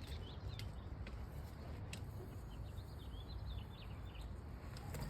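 Small birds chirping intermittently over low background noise, with a couple of sharp clicks near the start.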